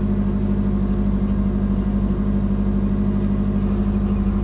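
Subaru Forester GT's twin-turbo flat-four engine idling steadily while it warms up from a cold start, heard from inside the cabin.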